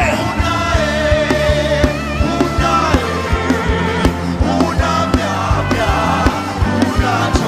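Loud live gospel worship music: a steady drum beat about three times a second over a bass line, with long held notes on top.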